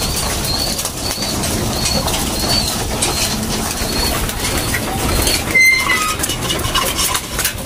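Racing pigeons in their loft: a steady, noisy bustle of birds, with a run of short high chirps about twice a second for the first three seconds.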